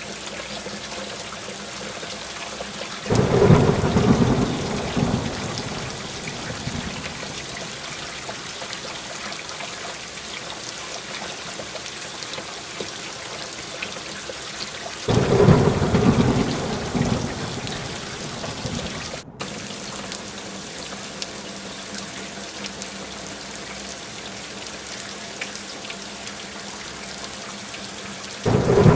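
Steady rain with thunder: a roll of thunder breaks suddenly about three seconds in and another about fifteen seconds in, each fading away over a few seconds, and a third starts near the end.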